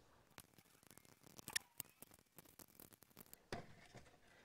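Faint scattered clicks and ticks as small Allen bolts are undone with a hex key on a plastic motorcycle fender extender, with the plastic parts being handled. A slightly longer rustle comes near the end.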